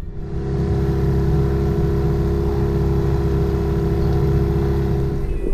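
Outboard motor of a dinghy running at a steady speed.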